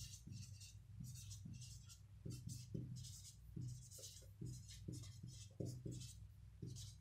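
Marker pen writing on a white board: a string of short, faint scratchy strokes and light taps at an irregular pace, over a low steady hum.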